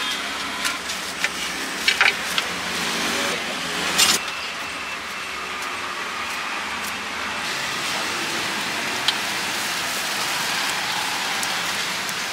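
Steady street background noise with traffic going by, and a few sharp clicks and scrapes in the first four seconds from utensils worked over a styrofoam takeaway box.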